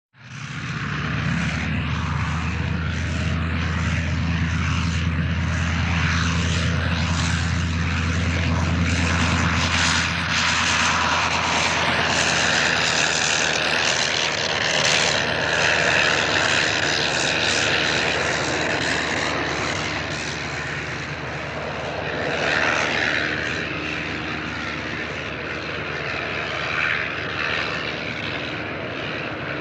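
Airplane engine drone, a steady low hum under a broad rushing noise. It begins suddenly out of silence and stays even throughout.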